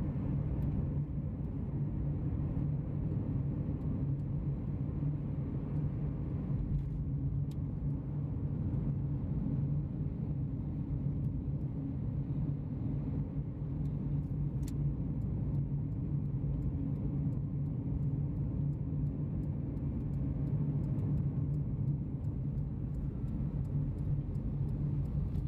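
Steady low rumble of a vehicle on the move: engine and road noise, with faint scattered ticks throughout.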